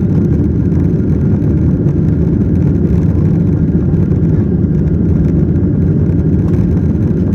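Steady low rumble of engine and air noise inside the cabin of a Boeing 737-900ER jet airliner, its CFM56-7B turbofans running under power.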